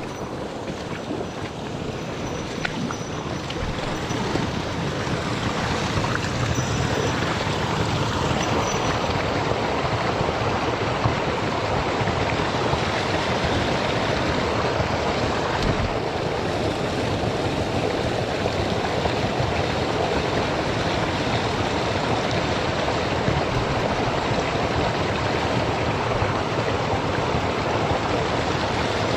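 Mountain stream rushing over rocks, a steady noise of running water that grows louder over the first few seconds and then holds.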